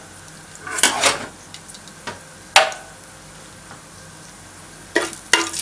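Whole spices heating in ghee in a pot with a faint sizzle, broken by a few sharp clinks of a utensil against the pot. The loudest clink comes about two and a half seconds in and rings briefly.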